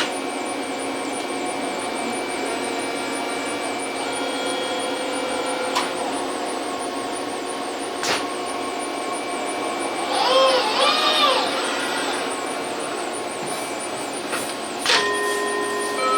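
Steady hum of machinery made of many steady tones, with a few sharp clicks and, about two-thirds of the way through, a brief pair of rising-and-falling tones.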